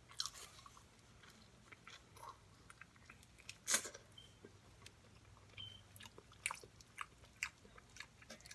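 Close-miked chewing and biting of food: faint mouth sounds with scattered short crunchy clicks, the loudest bite about four seconds in and a few more near the end.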